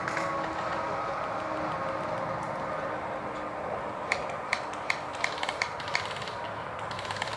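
Airsoft guns firing: sharp single clicks start about four seconds in and come irregularly, a few a second, then a quick full-auto burst near the end, over a steady background hum.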